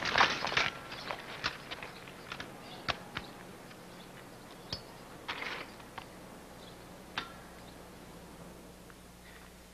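Quiet old film soundtrack: a steady low hum, with a brief clatter of clicks at the start and then scattered faint clicks and ticks.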